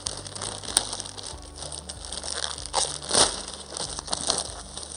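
Plastic mailing bag and bubble wrap crinkling and rustling as the bag is torn open and the wrapped hoops are pulled out, loudest about three seconds in.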